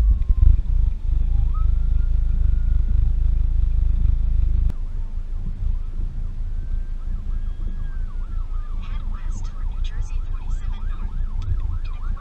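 Faint emergency-vehicle siren wailing with slow rising and falling pitch, switching to a fast yelp about nine seconds in. Heavy wind rumble on the microphone covers the first half, then drops off sharply.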